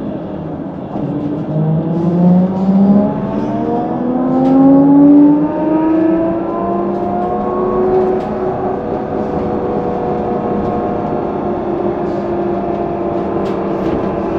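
Electric traction drive of a HESS Swisstrolley 4 trolleybus whining as it pulls away: a pitched whine rises steadily for several seconds, loudest about five seconds in, then holds a steady pitch at cruising speed, with a few light rattles from the bus body.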